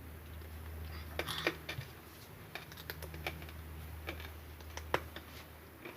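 Irregular light clicks and taps, about a dozen spread unevenly, over a steady low hum.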